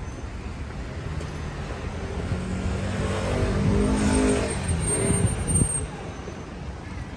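A road vehicle driving past. It grows louder to a peak about four seconds in and then fades, its engine note dropping in pitch as it goes by.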